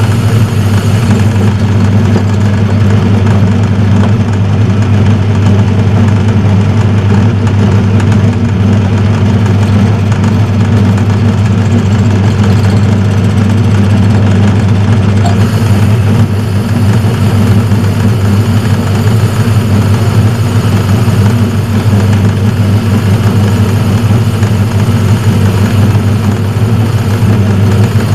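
Metal lathe running steadily, its motor and drive giving a loud, even low hum while the sleeve's bore is cut.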